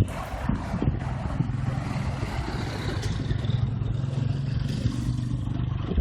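Street traffic: a motor vehicle's engine running with a steady low hum under the general noise of the road.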